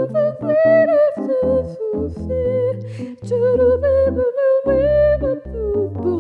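A woman's voice carrying a wordless, held melody over piano chords, in a slow worship song.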